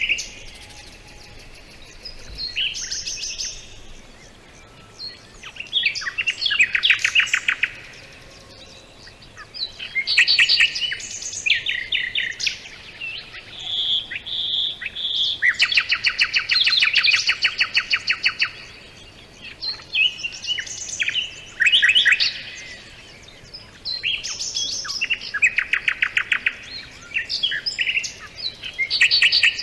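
Songbirds singing: short song phrases with fast trills and chirps, repeated every three to four seconds, over a faint steady background hiss.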